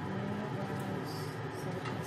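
A utensil stirring and scooping cooked pancit canton noodles in a metal pot, with a few short scrapes and a tap on the pot near the end, over a steady low hum.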